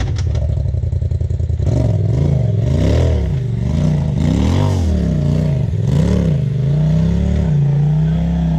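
Side-by-side UTV engine revving up and down in repeated throttle blips, about one a second, while climbing over rocks. Near the end it settles to a steady pitch.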